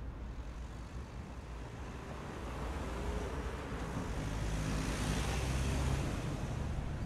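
Outdoor street traffic noise: a low rumble and hiss that swell as a vehicle passes, loudest past the middle.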